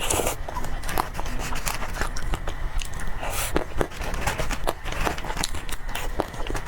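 Close-miked eating sounds: chewing and wet mouth clicks, with a couple of brief rustling scrapes.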